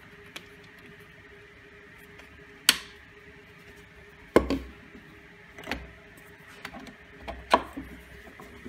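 Handling knocks of a round MDF disc, a 3D-printed plastic clamp and a plastic pipe being fitted together and set down on a wooden workbench. About five separate knocks and clicks, some with a dull thump, the loudest about a third of the way in and about halfway. A faint steady hum runs underneath.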